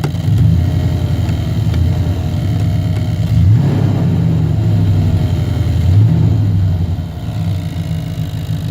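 1990 Chevrolet K1500's 5.7-litre V8 running, heard from inside the cab, its speed rising and falling a few times, with a ticking coming through the floorboard by the accelerator pedal. The tick comes from a fuel line touching the floorpan and firewall.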